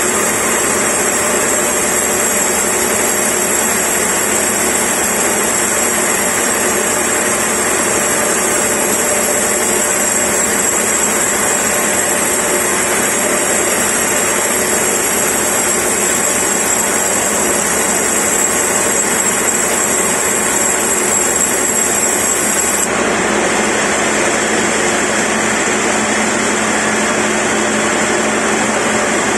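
Industrial band sawmill running steadily as its blade rips a large log lengthwise. The sound changes character abruptly near the end.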